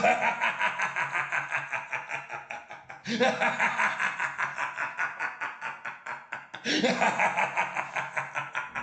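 A person laughing in three long runs of rapid 'ha-ha-ha' pulses, each starting loud and trailing off.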